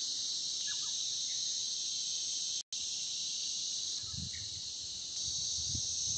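Steady, high-pitched chorus of insects, cut off for a split second about two and a half seconds in, with low rumbling in the second half.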